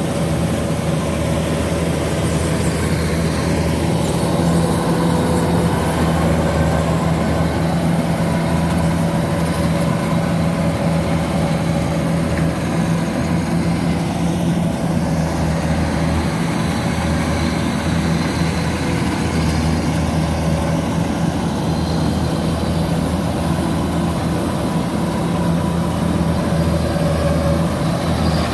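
Kubota DC93 combine harvester's diesel engine and threshing machinery running steadily while it harvests rice, a loud, even drone.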